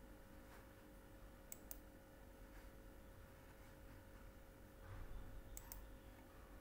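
Computer mouse clicking: two pairs of short, sharp clicks about four seconds apart, over faint room tone with a steady low hum.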